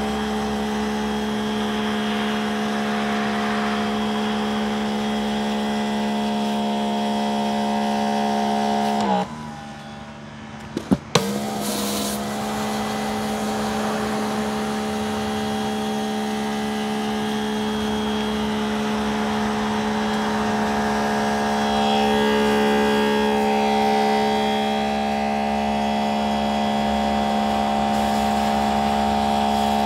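Greenworks GPW3000 electric pressure washer's brushless motor and pump running with a steady hum over the hiss of water spraying through a rotating surface cleaner onto concrete. About nine seconds in the motor winds down and stops. A couple of sharp clicks follow, then it starts up again and runs steadily until it cuts off at the very end.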